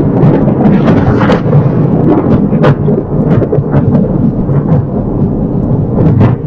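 A loud, continuous thunder-like rolling rumble from the sky, with sharp cracks and crackles breaking through it several times a second.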